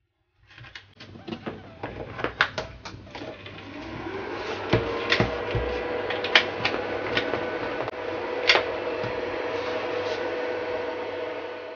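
DJI Hex Charger's cooling fan spinning up, its whine rising for about two seconds and then running steady with a low hum beneath. Sharp clicks and knocks of the charger and its cable being handled and plugged in, thickest in the first three seconds.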